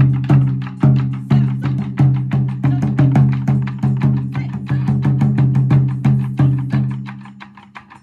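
Taiko ensemble drumming: steady heavy strikes on chu-daiko drums, each ringing low, with quick sharp wooden clicks of the bachi sticks between them. The drumming dies away near the end.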